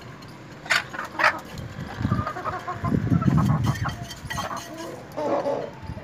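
Flock of desi golden Misri chickens clucking and calling, with two short sharp calls about a second in.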